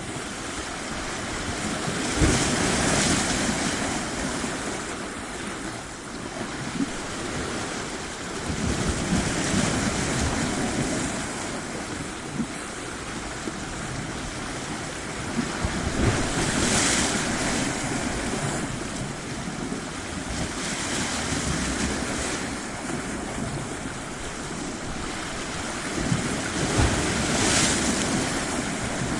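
Waves breaking and washing onto a shore, swelling louder about every five to seven seconds, with wind buffeting the microphone.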